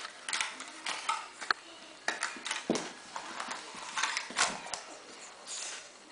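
Small dog scrabbling and rolling on a hardwood floor: irregular clicks and scuffs of claws and paws on the wood.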